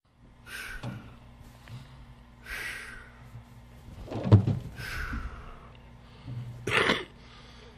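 A man breathing heavily, three loud breathy exhales about two seconds apart, with a dull thump about four seconds in and a rough grunt near the end, as if winded from a climb. A faint low hum runs underneath.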